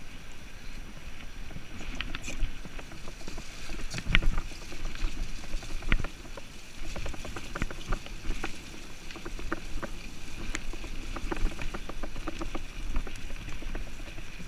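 Mountain bike riding fast over a dirt trail, heard from a handlebar-mounted camera. The tyres rumble on the ground, and the bike rattles and knocks over bumps.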